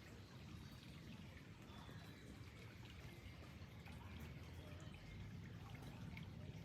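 Faint water trickling and flowing steadily, with a few faint, high bird chirps over it.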